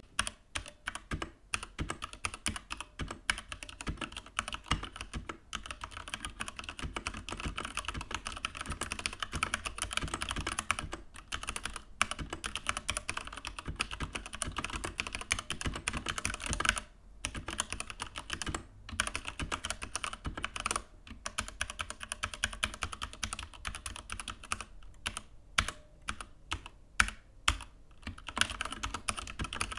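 Steady typing on a Keychron K8 mechanical keyboard: a dense, fast run of key clicks, broken by several brief pauses in the second half.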